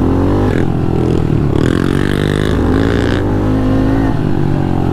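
Honda CRF110 pit bike's small single-cylinder engine running hard under the rider on a dirt trail, its pitch rising and falling several times as the throttle is worked on and off.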